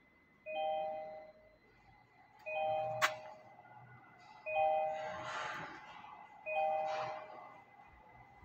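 Car warning chime, a two-note ding-dong repeating about every two seconds, four times, with a sharp click about three seconds in.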